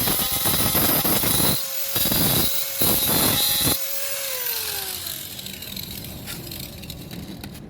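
Handheld power tool working against car body metal, its abrasive noise dropping out briefly twice while the motor's whine carries on. About four seconds in it is switched off and the whine falls steadily as it spins down.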